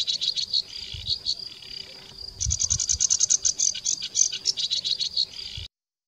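Reed warbler singing a fast, scratchy chatter of short repeated notes. It eases off briefly about two seconds in, resumes, and cuts off suddenly near the end.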